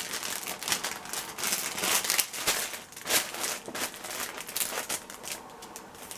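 Plastic packaging being handled, with irregular crinkling and rustling that fades out near the end.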